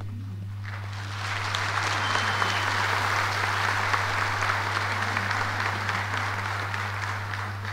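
Audience applauding, building up about a second in and dying away near the end, over a steady low hum.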